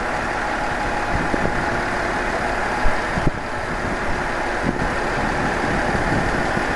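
Diesel railcar's engine idling steadily while the car stands at the platform, with a brief knock about three seconds in.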